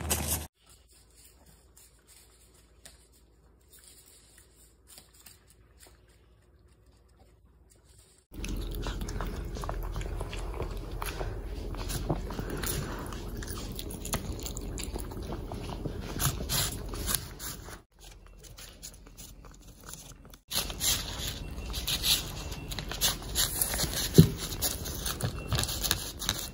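Cavalier King Charles Spaniels eating from paper plates: chewing and crunching carrot pieces and licking and smacking at the food, with many short clicks. It is faint for the first several seconds and louder from about eight seconds in.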